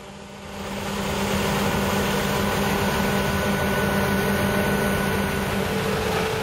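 Claas Lexion 770 combine harvester running in the field: a steady engine drone with a faint high whine, fading in about a second in.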